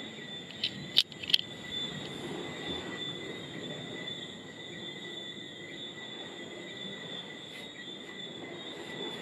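Night insects, crickets, trilling steadily in a high, unbroken chorus over a low background noise. About a second in, three sharp clicks stand out above it.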